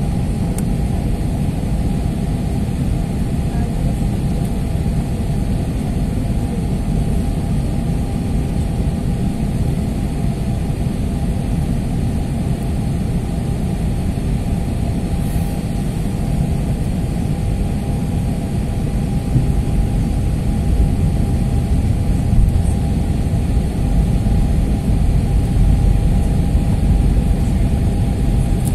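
Cabin noise inside an Airbus A321 in flight: the steady rumble of airflow and its IAE V2500 engines, with a steady hum-tone running through it. It grows a little louder about two-thirds of the way in.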